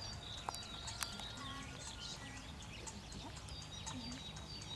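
Faint chirps and short whistles of small birds, scattered and irregular, with two light clicks about half a second and one second in.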